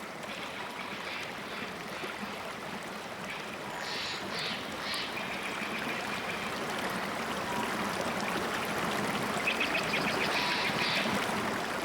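A stream flowing steadily, with short high calls over it about four seconds in and again near ten seconds.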